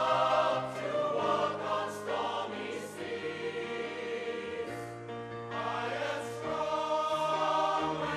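A choir singing a slow piece in long held chords over a low bass line.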